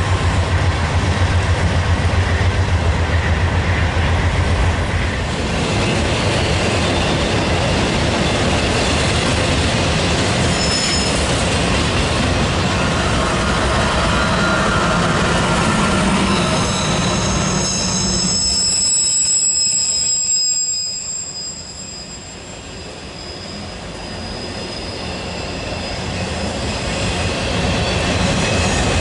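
A train rolling past close by, its wheels rumbling and clattering over the rails. About two-thirds of the way in, the wheels squeal in thin high tones while the rumble briefly drops, then it builds up again.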